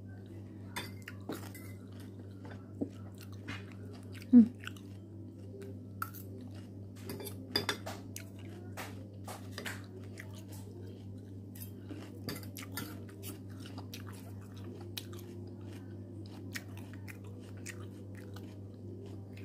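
Close-miked chewing of crisp lettuce salad in a creamy dressing: crunching and wet mouth sounds, with a few sharp clicks of the fork on the plate. A steady low hum runs underneath.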